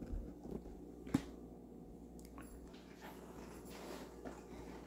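Quiet room tone with one sharp click about a second in and a few fainter ticks.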